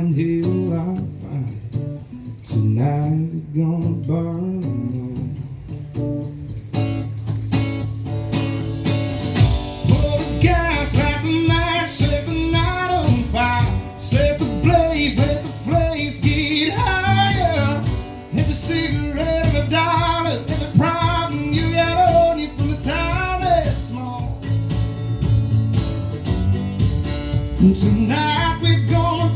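Live country music: a male singer belting a song over amplified guitar. The music fills out with a steady beat and heavier low end about seven seconds in.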